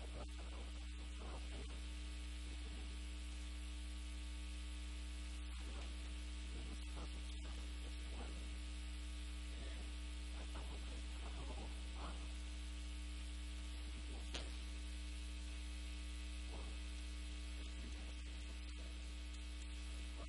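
Steady low electrical mains hum with hiss, over faint scattered scrapes of chalk on a blackboard.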